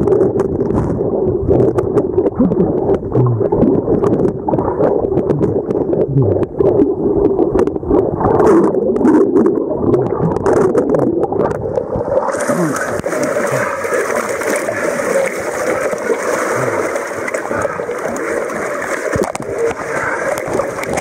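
Lake water gurgling and sloshing around a submerged phone microphone, heard muffled with no highs and broken by short knocks of the phone being handled. About twelve seconds in, the sound turns to a bright hiss of splashing water as the microphone clears the surface.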